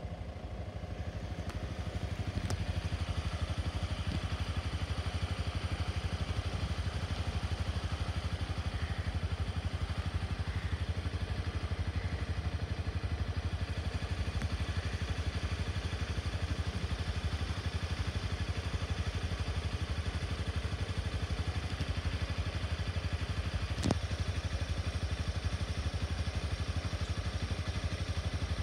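A vehicle engine idling steadily, building up over the first couple of seconds, with one sharp knock about 24 seconds in.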